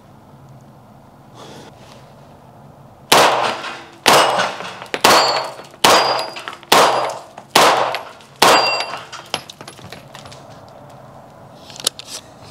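Seven deliberate semi-automatic shots from a 9mm CZ Scorpion Evo 3 S1 pistol, a little under a second apart, echoing in an enclosed concrete range. Steel plate targets ring as they are hit. A few small clicks follow near the end.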